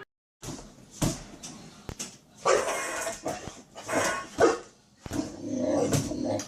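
A pet dog barking several times in short separate barks.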